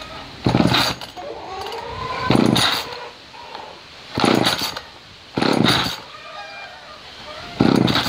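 Homelite Super 2 33cc two-stroke chainsaw being pull-started: five sharp yanks of the recoil starter, each a short burst of the engine turning over, about every one and a half to two seconds. It does not keep running between pulls.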